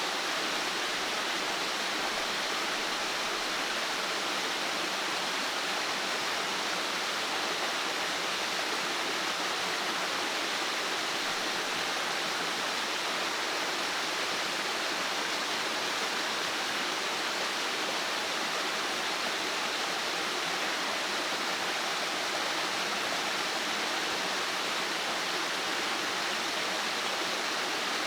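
Steady, even rushing of water with no separate splashes or drops standing out.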